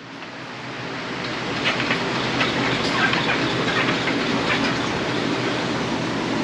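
A shooting-range target carrier running on its overhead track, bringing the target back to the booth. It is a steady mechanical rumble with light rattling clicks that builds up over the first couple of seconds and then holds.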